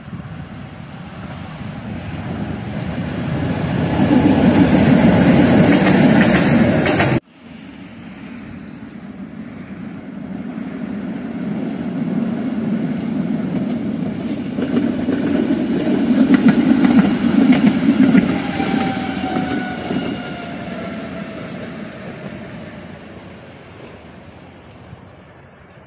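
Tatra T5C5 trams running past on ballasted track, wheels rumbling and clattering over the rails as they near. An abrupt cut comes about a quarter of the way in; a second pass then builds to its loudest past the middle and fades with a falling whine.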